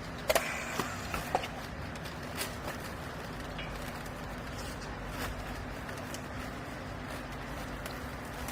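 Hydraulic used-clothes baler running with a steady hum from its motor and pump. A few sharp knocks come in the first second and a half, and a couple of fainter ones follow later.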